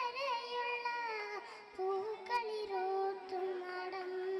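A young girl singing into a microphone, holding long notes that step from one pitch to the next.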